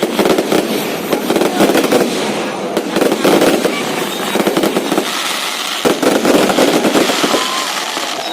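Aerial fireworks bursting: a dense, rapid crackling and popping that eases briefly about five seconds in, then picks up again.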